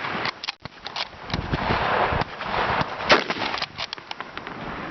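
A single rifle shot about three seconds in, with scattered clicks and handling noise before it.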